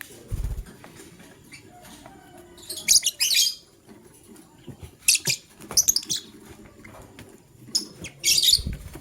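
Lovebirds chirping in short, shrill bursts, several times, with a couple of brief low thumps near the start and near the end.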